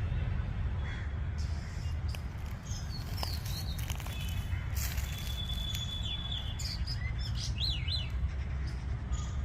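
Birds chirping: short sliding high chirps, one held high note about halfway through and two quick chirps near the end, over a steady low rumble.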